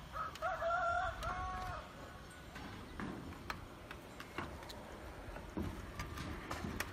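Rooster crowing once near the start, a wavering call of about a second and a half that breaks briefly near its end. After it, a low background with scattered light clicks.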